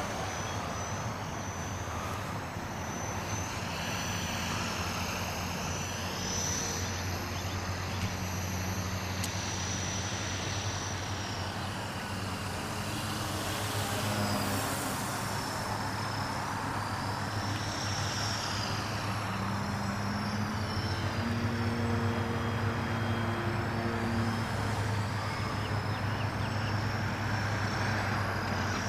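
Radio-controlled model airplane's motor and propeller whining overhead, the whine rising and falling in pitch several times as the plane passes back and forth, over a steady low hum.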